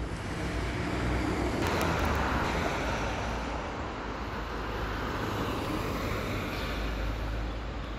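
Street traffic noise: a steady low rumble of engines and tyres, with a passing vehicle swelling louder about two seconds in and fading again.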